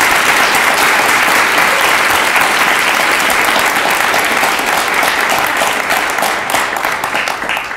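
Audience applauding, the clapping thinning to scattered claps and dying away near the end.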